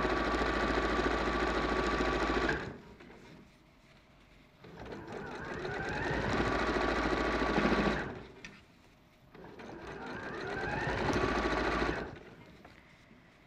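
Domestic sewing machine stitching in three short runs: the first stops about two and a half seconds in, then two more start slowly and pick up speed before stopping, with short pauses between. It is running a quick holding stitch through the layers of a folded cuff.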